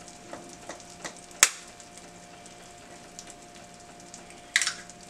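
Eggs cracked sharply against the rim of a square nonstick frying pan, two loud knocks about a second and a half in and near the end with a few lighter taps, over a steady faint sizzle of olive oil and butter heating in the pan.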